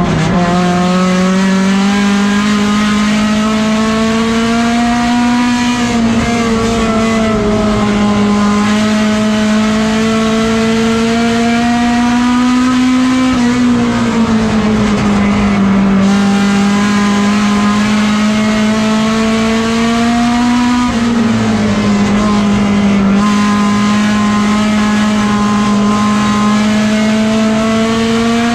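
Race car engine at racing speed, heard from inside the cockpit. Its pitch climbs slowly and then dips sharply, over and over, about every seven to eight seconds, as the throttle is lifted and reapplied.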